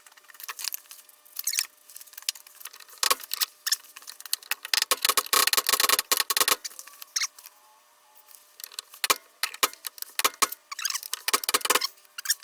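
PB Blaster aerosol penetrant being sprayed onto a truck door hinge pin in several short bursts, some over a second long, with clicks and rattles between them.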